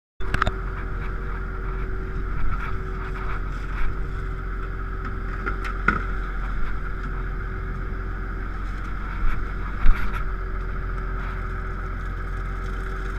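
Fishing boat's engine running at a steady pitch, with scattered knocks and clatter on board; the loudest knock comes about ten seconds in.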